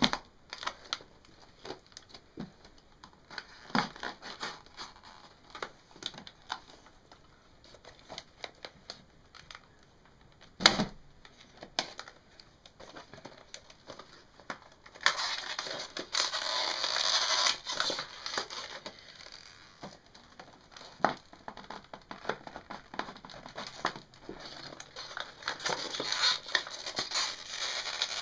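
Knife cutting and prying at a stiff plastic clamshell pack: scattered clicks and crackles, one sharp knock about a third of the way in, and two stretches of loud plastic crinkling, one a little past halfway and one near the end. The packaging is tough and slow to open.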